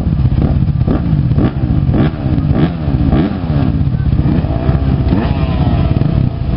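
A row of motocross bikes running at the start line, several riders blipping their throttles so the engines keep rising and falling in pitch over one another.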